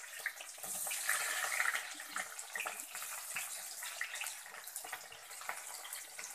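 Sliced onions sizzling and crackling in hot mustard oil in a kadhai as they are dropped in by hand, the sizzle loudest about a second in.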